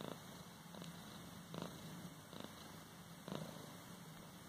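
A Persian cat purring steadily and faintly while being stroked, the purr swelling in a regular pulse a little under once a second.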